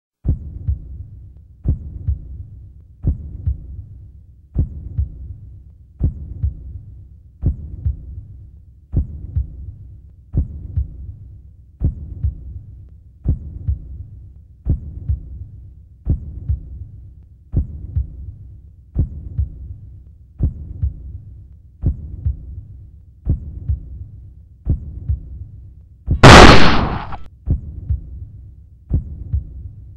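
Slow, deep heartbeat sound effect, a double thump about every one and a half seconds. Near the end a single loud crash-like burst cuts across it for about a second while the heartbeat goes on.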